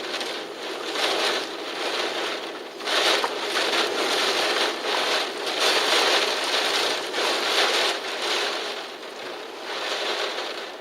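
Typhoon wind rushing in gusts, a steady hiss that swells and eases every second or two.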